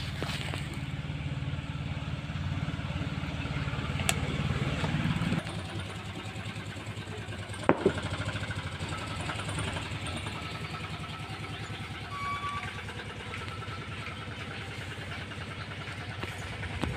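An engine idling steadily, swelling slightly and then cutting off abruptly about five seconds in. A fainter engine keeps running afterwards, with a single knock near eight seconds.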